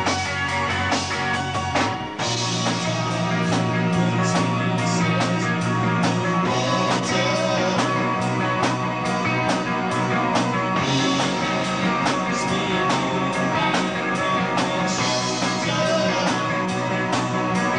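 Live progressive rock band playing: electric guitars over bass and a drum kit, with busy drumming. A short dip about two seconds in, after which the bass moves to a new note.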